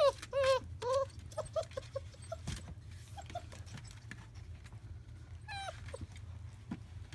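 Five-week-old German Shepherd puppies yipping and whimpering as they play: three loud arching yips in the first second, a run of short, fainter yips after them, and one more falling yelp near the end, over scattered small scuffling clicks.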